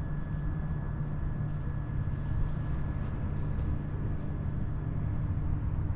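Steady low rumble of street background noise, like distant traffic, with a faint steady high tone that fades out about five seconds in.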